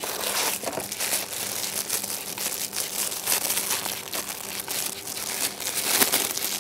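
Packet of shredded beef suet being opened and handled, its bag crinkling and rustling with dense irregular crackles.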